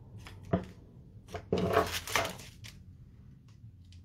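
Hard plastic clicks and the rustle of a clear plastic sleeve as a rubber leaf stamp and a clear acrylic stamp block are handled on the desk. A sharp click comes about half a second in, and a louder burst of rustling and clicking falls around the middle.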